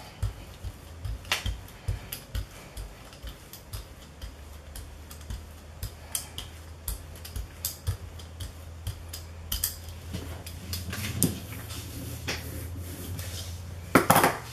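Irregular light taps and clicks of paint being dabbed and smeared by hand over a gel printing plate, with a steady low hum joining from about four seconds in and a louder knock near the end.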